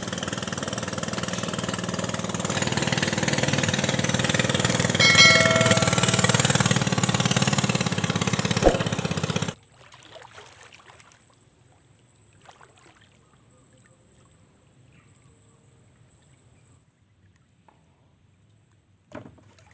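Small boat engine running steadily with wash noise, growing slightly louder, with a short pitched beep about five seconds in. The sound cuts off abruptly about two-thirds of the way through, leaving a quiet stretch with faint scattered knocks.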